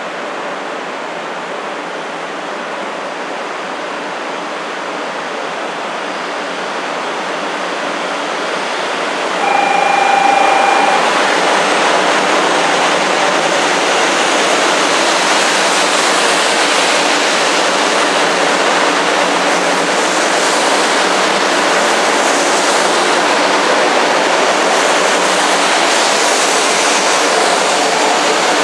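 500 series Shinkansen pulling out of the platform and gathering speed past the listener: a steady rush that grows louder, with a short single-pitch tone about ten seconds in. The rushing, hissing noise of the passing cars then stays loud.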